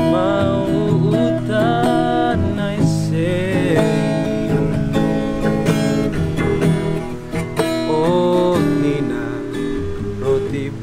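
Acoustic guitar strummed and picked, accompanying a man singing a slow, sorrowful song with long held notes that slide between pitches.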